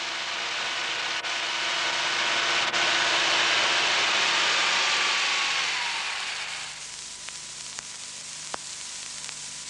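A loud rushing hiss with a faint tone gliding downward. It swells for a few seconds, then fades out about two-thirds of the way through. A weaker steady hiss with a low hum follows.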